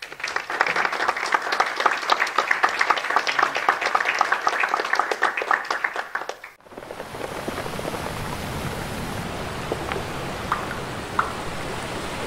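Audience applauding with dense clapping for about six and a half seconds, then a sudden cut to a steady rush of sea waves.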